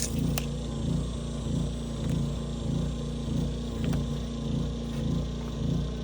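A motor running steadily, its sound swelling and fading in a regular rhythm about every half second or so, with a couple of sharp clicks at the start.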